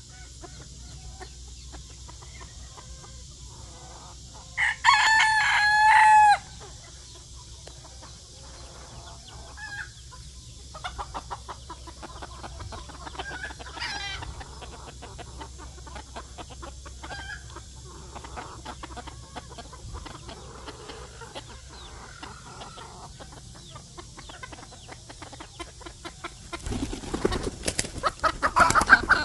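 Phoenix bantam roosters: one loud crow about five seconds in, lasting under two seconds, then a fainter crow around fourteen seconds, with soft clucking between. Near the end comes a rapid run of loud flutters as a rooster beats its wings.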